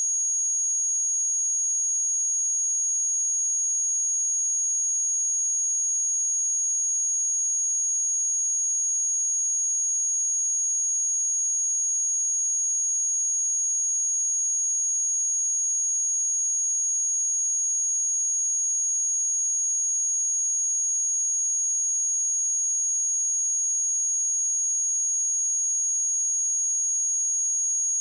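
A continuous pure 6628 Hz sine-wave test tone, a single high-pitched whistle held at a steady level.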